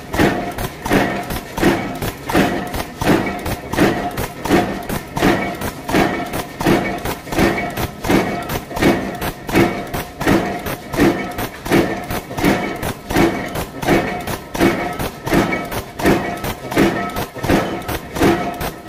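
Mechanical power press with a pneumatic strip feeder running continuously, stamping bicycle chain plates from steel strip: a regular thud about every three-quarters of a second over a steady machine hum.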